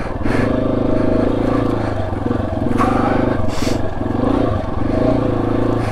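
Yamaha XT250's single-cylinder four-stroke engine running at low speed off-road, the throttle eased on and off about once a second. Two brief hissing noises come around the middle.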